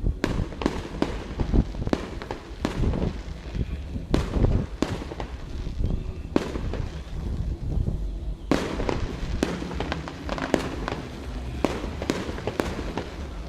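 Aerial fireworks display: many sharp bangs and crackles at an irregular pace over a continuous low rumble of distant bursts, with a denser run of reports in the second half.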